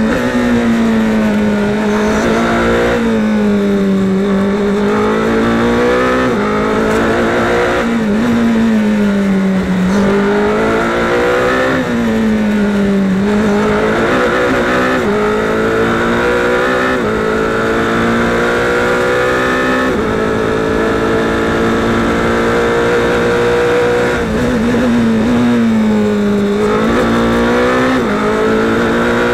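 Indy Pro 2000 race car's 2.0-litre Mazda four-cylinder engine heard onboard at racing pace: the pitch climbs under full throttle, steps down at each upshift, and falls under braking and downshifts into corners several times before climbing again, with one long run up through the gears in the middle.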